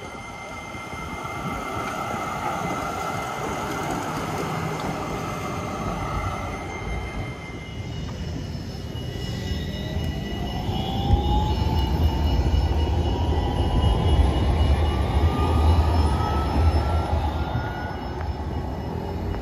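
Electric trams on street track: a steady rolling noise with a few constant whines, then, about eight seconds in, a low rumble of wheels on rail and an electric traction-motor whine rising steadily in pitch as a tram pulls away and accelerates.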